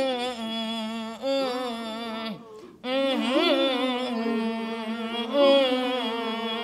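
A woman's voice singing long held notes of a Korean Namdo folk song in two phrases, with a short break for breath about two and a half seconds in. The pitch wavers and bends on the sustained notes, the ornamented vibrato of this singing style.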